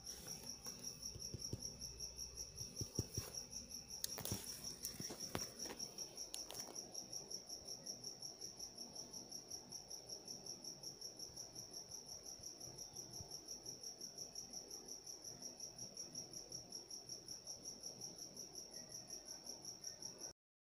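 A cricket chirping steadily: a high, evenly pulsing trill about five or six times a second, with a few faint clicks in the first several seconds. It cuts off abruptly shortly before the end.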